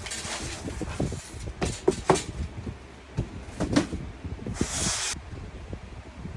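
Cardboard shoe box being handled and opened: scattered knocks and taps, with a short sliding, rustling noise about four and a half seconds in.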